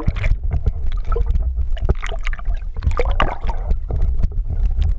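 Muffled water sound heard from just below the surface: a steady low rumble with irregular knocks, clicks and gurgles.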